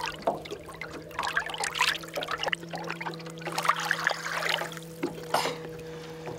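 Water sloshing and splashing around a hand and a pike held in the water beside the boat to revive it before it swims off, with several sharper splashes. A low steady hum runs underneath.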